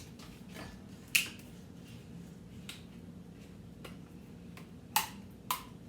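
A few sharp clicks from kitchen items being handled: one about a second in and two close together near the end.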